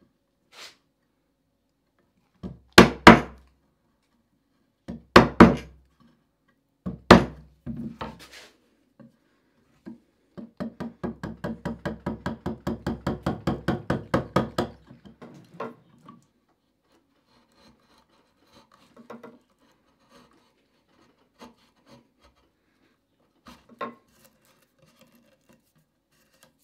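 Wood chisel chopping into a wooden molding strip: three loud knocks a couple of seconds apart, then a quick run of lighter chops, about four a second for some five seconds and growing louder, then scattered faint paring scrapes and ticks.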